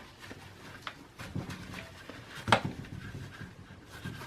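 Paper towel rubbing over a CPU to wipe off old thermal compound, with light handling clicks and one sharp click about two and a half seconds in.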